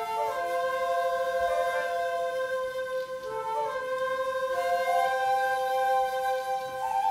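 Bamboo flute music: slow, long held notes, each passing to the next with a short ornamental turn.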